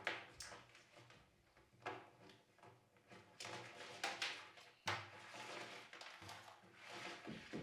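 Faint hand-work handling sounds: scattered light clicks, knocks and short scrapes, with a low steady hum that comes in suddenly about five seconds in.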